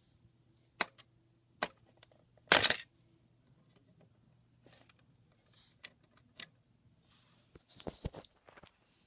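Small sharp clicks and clatters of hard parts being handled while an alarm clock is worked on, with a louder clatter about two and a half seconds in and a few more clicks near the end.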